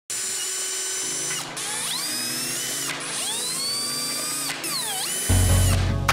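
Ryobi cordless drill driving screws into a 3D-printed plastic housing, in several short runs, its motor whine rising in pitch as it spins up. Music comes in near the end.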